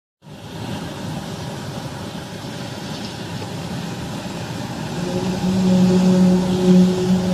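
A steady noisy background, then about five seconds in a low, steady droning tone with overtones sets in and grows louder: a recording of the so-called 'sky trumpets' sound, the unexplained drone heard in the sky.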